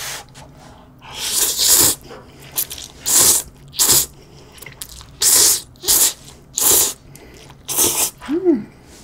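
A person slurping instant ramyeon noodles in about seven quick, airy pulls, the first and longest about a second in. A brief hum near the end.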